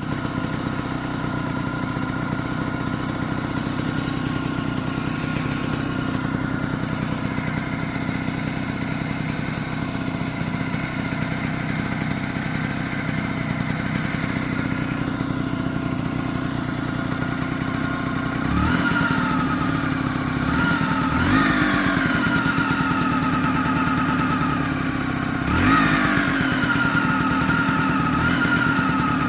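Vespa PX scooter's two-stroke single-cylinder engine idling steadily, then revved briefly three times in the second half. It carries the odd noise that appeared after a new clutch was fitted, which the owner cannot place.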